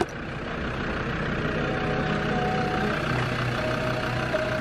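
Steady mechanical drone of a vehicle-mounted air compressor inflating an off-road tyre through a coiled air hose. Quiet music fades in about halfway.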